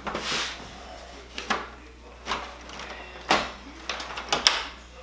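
Plastic casing and top cover of a Brother MFC-9340CDW colour LED laser printer being handled and lifted open by hand: about five short scrapes and clicks, the sharpest near the end.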